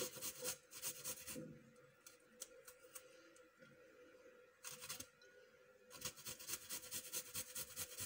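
Garlic cloves being grated on a small flat metal hand grater: quick rasping strokes in bursts, with a pause of a couple of seconds in the middle.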